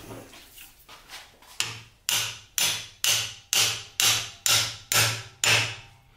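Hammer blows on a sacrificial piece, driving a slotted metal knife guard down onto the blade's tang: a few light taps, then about ten even blows, two a second, each with a short ring. The guard is being seated until it sits snug.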